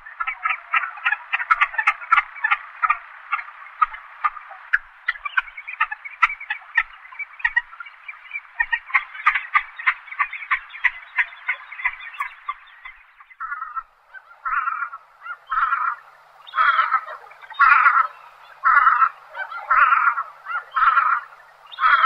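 Velvet scoter calling: a rapid run of short calls, then, about two-thirds of the way through, slower and louder calls at roughly one a second.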